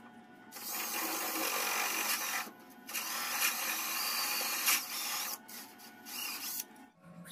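Makita DDF485 cordless drill boring into a hardwood block with a cone-shaped bit, the motor running under load as the bit cuts wood. It drills in three runs: two of about two seconds with a brief pause between, then a short final burst.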